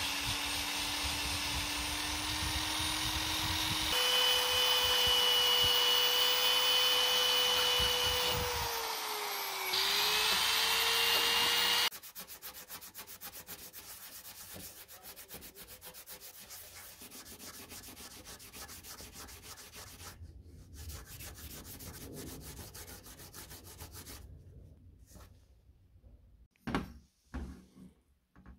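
Power-driven rotary wire brush scrubbing deposits off the sealing surface of a lawn mower cylinder head. Its motor speeds up about four seconds in, dips in pitch under load around ten seconds, and stops suddenly about twelve seconds in. Quieter rapid scrubbing strokes follow, then a few knocks near the end.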